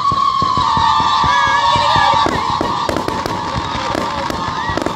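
Aerial fireworks whistling: a loud, steady whistle starts suddenly, sinks slightly in pitch over the first two seconds, then goes on more faintly. A rapid crackle of sharp pops runs throughout.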